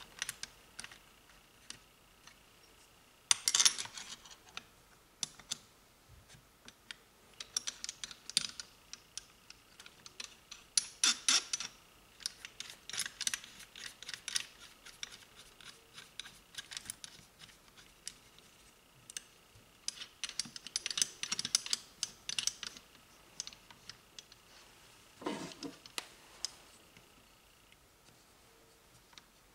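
Light metallic clicks and rattles in scattered clusters as small screws and parts are handled and fitted at the rear cover of a starter motor, with a couple of louder knocks, one about three and a half seconds in and one near the end.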